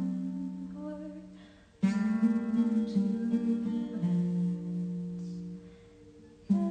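Acoustic guitar chords, each strummed once and left to ring out. One chord fades away, a new chord is struck about two seconds in and dies down over several seconds, and another is struck near the end.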